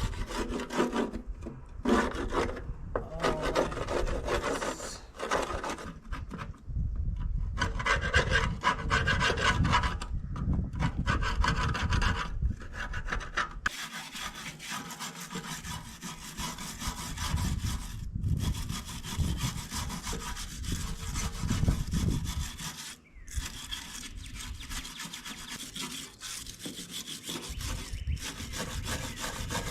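Repeated hand scraping strokes on an old hydraulic tank, rasping off a thick layer of built-up grime. The strokes come in separate bursts at first, then run closer together about halfway through.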